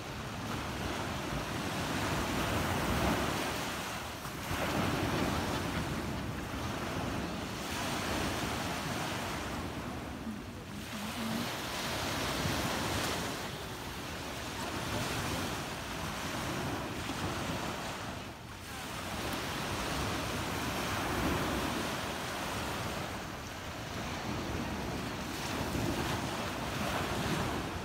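Small waves breaking and washing up on a sandy beach, the surf swelling and falling back every few seconds, with wind on the microphone.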